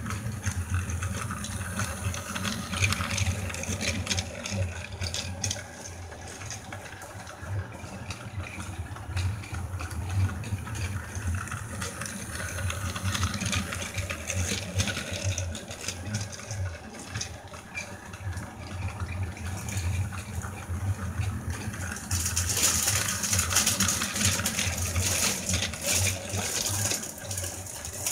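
Battery-powered Plarail toy train running on plastic track, its small motor whirring steadily as the wagons rattle along. It gets louder for the last few seconds.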